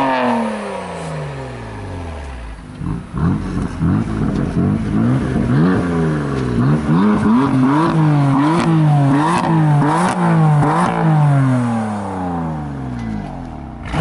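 A parked BMW M4's twin-turbo inline-six on its stock exhaust, revved in a quick run of blips at about one a second, each rise dropping straight back, before settling near the end. It opens with the falling tail of a decatted, muffler-delete BMW 335i's rev.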